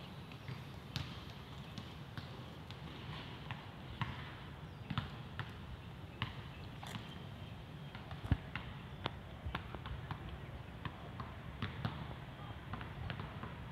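Footsteps, short taps about two a second, over a low steady outdoor rumble.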